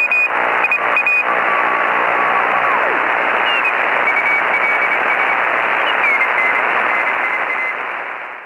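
Shortwave radio receiver static: a loud, dense hiss with short whistling tones that slide down in pitch now and then, fading out at the end.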